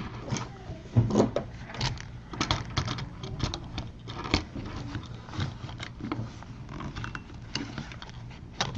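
Irregular small clicks, taps and scrapes of metal rivets and a plastic light-switch body being handled as the rivets are fitted into the side of the switch.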